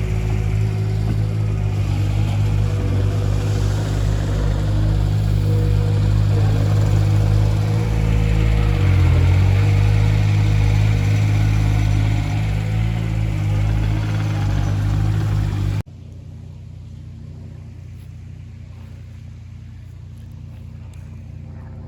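Engine of a heavy machine running steadily at a working speed. Its pitch sags briefly about halfway through. Near the end the sound cuts off abruptly, leaving a much quieter, steady engine hum.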